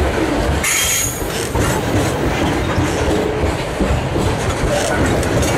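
Freight train's hopper wagons rolling past at close range: a steady rumble with irregular wheel clatter on the rails, and a brief high wheel screech about a second in.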